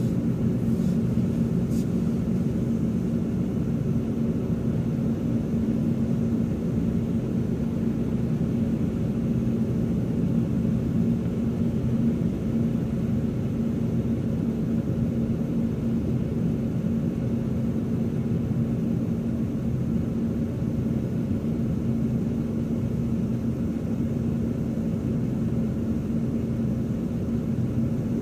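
Double-stack intermodal freight train rolling past at a level crossing: a steady low rumble of well cars on the rails, with a steady low hum, heard muffled from inside a car.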